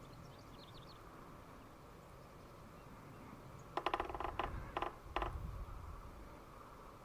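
Red-breasted sapsucker drumming on wood: a fast roll of taps about four seconds in, followed by three shorter, separate bursts of taps over the next second and a half.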